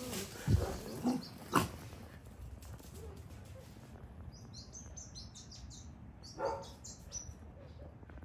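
Dogs playing rough, with a few sudden thuds and short dog vocal sounds in the first two seconds. Small birds then chirp in quick, short calls for a few seconds.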